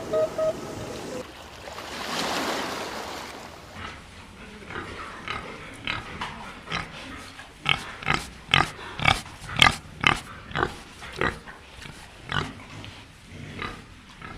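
Domestic pig grunting: a run of short grunts, about two a second, loudest midway through. A goose's honking trails off at the very start.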